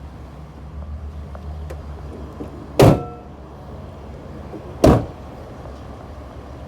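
Two loud door slams on a Mercedes-Benz Sprinter van, about two seconds apart, the first with a short metallic ring after it.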